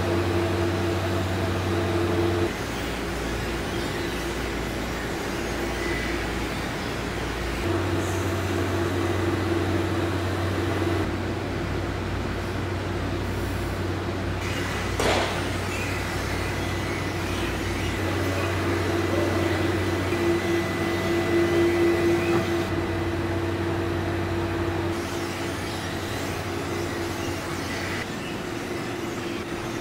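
Steady machinery hum of an automated plating line, with a few steady tones that shift in level and pitch several times. A single short clank sounds about halfway through.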